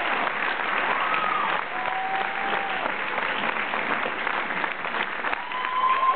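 Audience applauding steadily, with a few voices cheering over the clapping, most strongly near the end.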